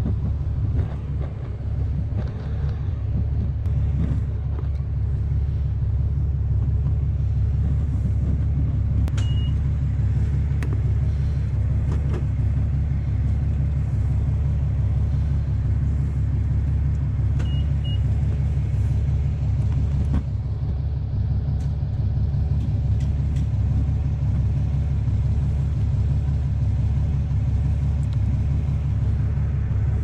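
BMW HP4 motorcycle's inline-four engine running with a steady low rumble. A short high beep comes about nine seconds in and a double beep near eighteen seconds.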